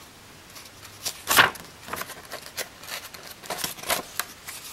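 Pages of a hardcover picture book being handled and turned: a run of short paper rustles and swishes, the loudest about a second and a half in.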